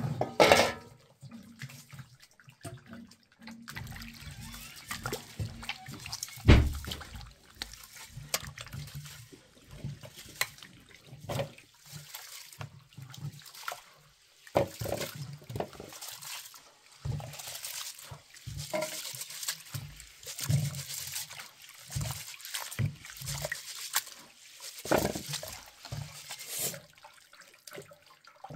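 Hands swishing and rubbing rice in water in a metal basin to wash it, with irregular splashing and trickling. Two sharp knocks come about half a second and six and a half seconds in.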